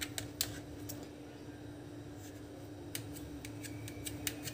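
Metal knife blade clicking and scraping against a steel plate as it cuts through a soft, set chickpea mixture: a few sharp clicks in the first half-second, a pause, then more clicks from about three seconds in. A steady low hum runs underneath.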